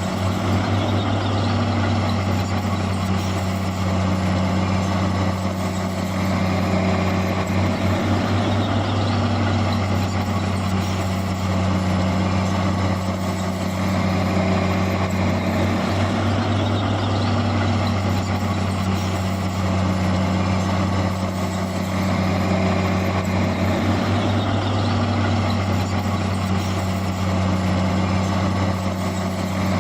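Heavy diesel engine of earth-moving machinery running steadily at a constant speed, a low even drone.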